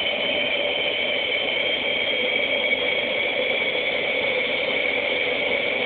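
Small homemade ramjet running on a test stand: a steady rushing noise of forced air and burning gas, with a few steady tones through it.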